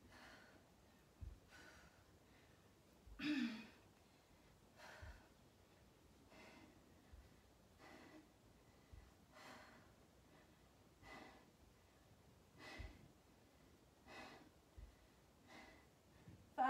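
A woman's heavy, rhythmic breathing under exertion, about one breath every second and a half, with a louder voiced sigh a few seconds in. Faint low thuds fall between some of the breaths.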